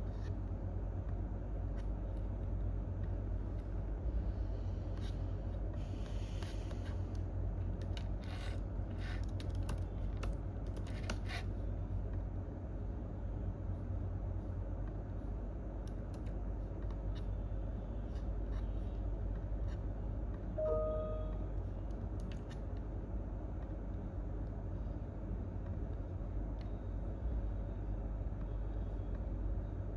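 Quiet office room tone with a steady low hum. A few scattered clicks and a rustle come in the first half, not the dense run of typing. One short tone sounds about two-thirds of the way through.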